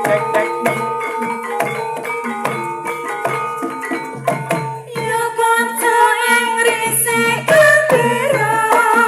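Banyumas ebeg accompaniment music: an ensemble of tuned mallet percussion playing steady ringing notes over regular hand-drum strokes. A singing voice comes in about halfway through.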